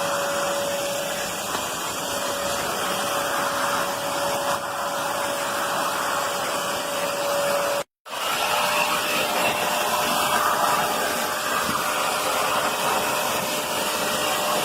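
Black+Decker BXVC30XTDE 1600 W wet/dry vacuum running with a steady whine. The sound drops out completely for a moment about eight seconds in, then resumes.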